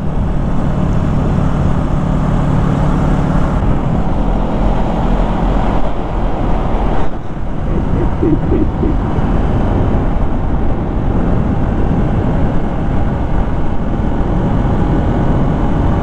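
Motorcycle engine running at a steady cruise under heavy rushing wind noise. The engine hum is plainest in the first few seconds, after which the wind and road noise dominate.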